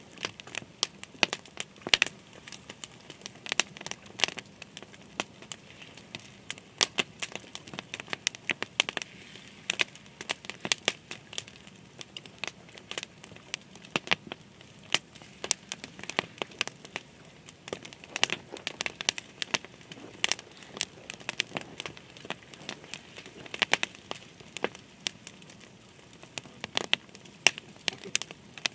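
Irregular sharp crackling and crinkling, many small clicks a second with no steady rhythm, over a faint hiss.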